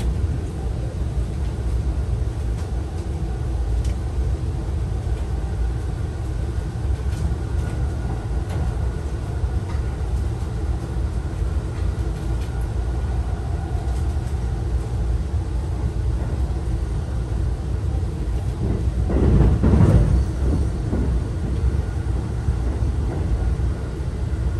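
Saphir Odoriko E261-series electric train running, heard from inside the passenger car: a steady low rumble of wheels on rail. A louder rush rises and fades about twenty seconds in.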